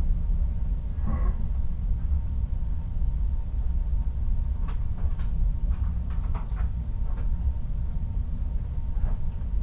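Steady deep rumble of a ship under way, heard inside a cabin at a porthole, with a few faint short ticks in the middle.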